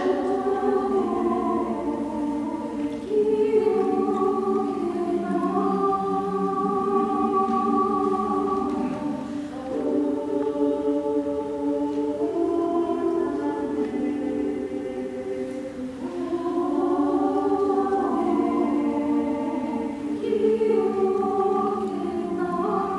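Choir singing long held chords in several parts that shift every few seconds, swelling and easing in loudness.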